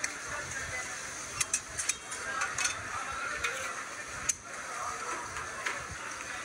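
Mutton karahi sizzling in blackened karahi woks, with a few sharp clicks of a metal utensil against the pan, the loudest about four seconds in.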